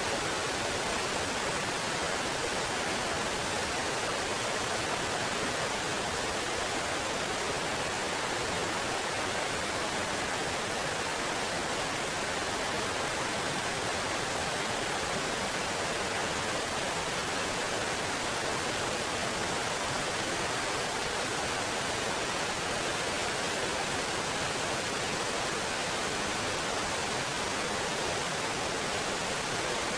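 Small waterfall: water cascading over rocks, a steady, unbroken rushing.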